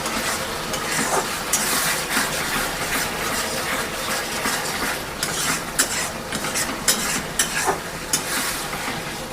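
Spice masala sizzling in a pan while a spatula stirs it, with sharp scrapes and clinks against the pan that come more often in the second half.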